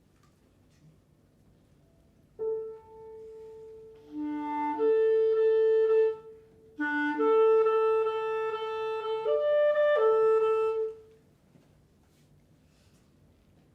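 Clarinet playing long held notes in two short phrases, starting about two seconds in, with a brief pause between them and a lower note sounding under the start of each phrase.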